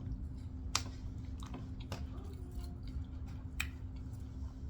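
A person chewing food, with a few sharp, separate clicks, over a low steady hum.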